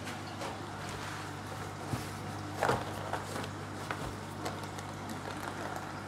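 Steady low hum of aquarium pumps and filters, with a few short crinkles and snips as plastic fish-shipping bags are handled and cut open with scissors.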